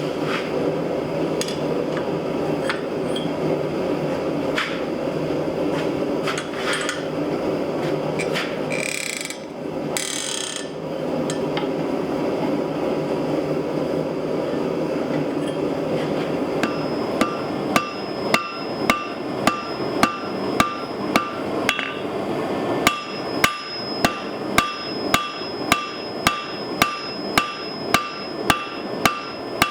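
Steel hammer forging on the 160 lb Trenton anvil: a run of regular blows, about one and a half a second, each with a bright ring, starting a little past halfway. Before that, a steady rushing noise with only occasional light taps.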